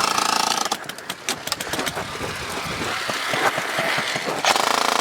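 Airsoft guns firing: a buzzing full-auto burst at the start, scattered sharp shots and clicks, then another full-auto burst near the end.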